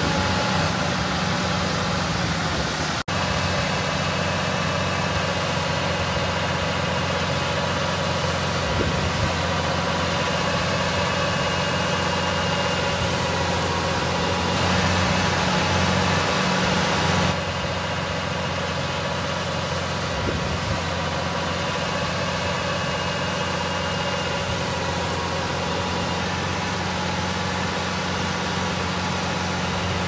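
Heavy farm machinery engine running steadily at a constant speed, with a very brief dropout about three seconds in and a slight drop in level a little after halfway.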